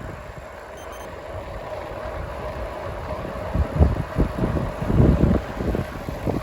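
Wind buffeting the microphone in low, gusting rumbles that grow stronger about halfway through, over a steady hum.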